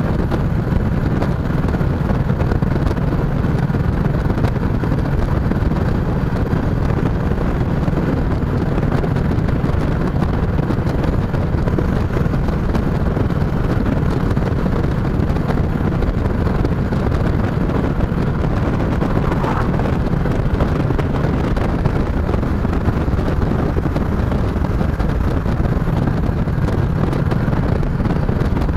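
Chopper motorcycle's engine running steadily on the move, with wind noise buffeting the microphone.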